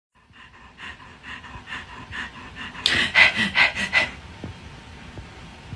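German Shepherd panting quickly in a steady rhythm of about four or five breaths a second, loudest around three seconds in. The panting stops about four seconds in.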